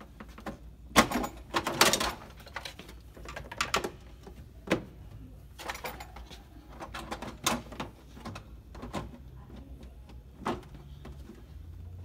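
Plastic ice bucket being worked out of and back into the ice compartment on a Beko side-by-side refrigerator's freezer door: a string of irregular plastic knocks, clunks and scrapes, the loudest about one and two seconds in, as the tight-fitting bucket is wrestled free and refitted.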